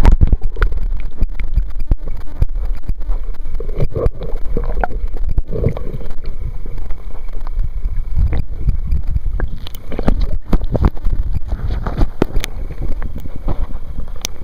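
River current heard with the microphone underwater: a loud low rumble with many sharp clicks and knocks, starting abruptly as the camera goes under.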